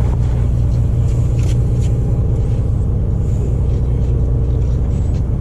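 Sportfishing boat's engine running with a steady low drone, with a few light knocks in the first two seconds.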